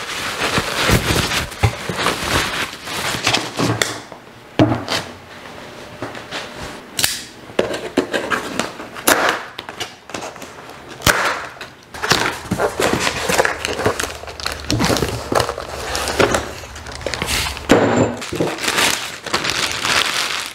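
Packing foam and a cardboard box rustling and scraping as a new machine vise is unpacked, with several sharp snaps midway as plastic strapping bands are cut with a knife.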